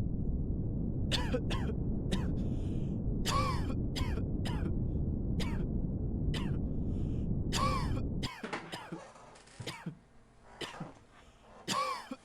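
Added test-room background noise: a steady low rumble that cuts off abruptly about 8 seconds in, overlaid with a string of short coughs and throat-clearing sounds.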